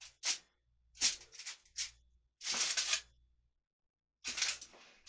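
Aluminum foil crinkling in several short bursts as butternut squash halves are set down on it and moved about.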